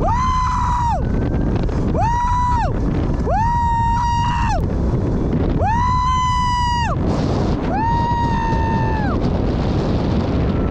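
A man screaming five times while riding a seated zipline, each scream a long, high, held cry of about a second that drops in pitch at the end, over steady wind noise on the microphone from the ride's speed.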